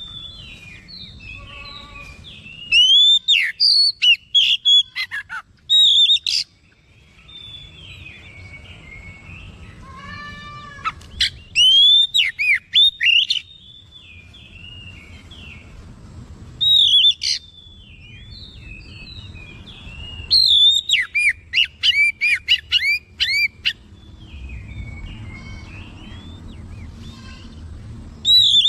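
Oriental magpie-robin singing: loud, clear whistled phrases with quick rising and falling notes in several bursts, with quieter scratchy warbling between them, as the bird runs through its repertoire of learned phrases.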